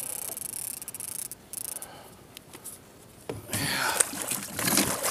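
Fishing reel winding in line, then from about three and a half seconds in louder splashing and knocking beside the kayak as the hooked lake trout is brought up to be netted.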